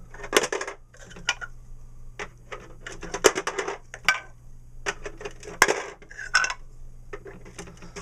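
Hard plastic letter blocks pushed through the roof slots of a toy barn shape sorter and dropping inside: a series of separate plastic clacks and rattles, several of them in quick clusters.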